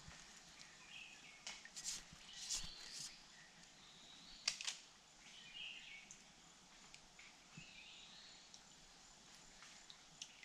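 Faint forest ambience with birds calling on and off in short high phrases, and a few sharp clicks, the loudest about four and a half seconds in.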